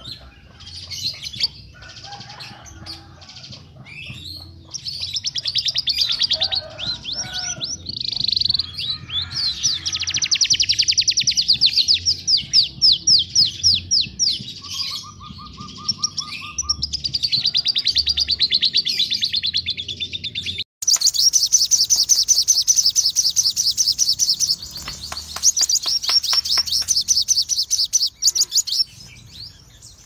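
Songbirds singing loud, sharp, harsh song: long runs of rapid high trills and chattering phrases, with a brief lower buzzy note near the middle. A little after two-thirds of the way in it cuts abruptly to another bird's recording of fast, dense trills, as in a spliced 'masteran' compilation used to tutor competition songbirds.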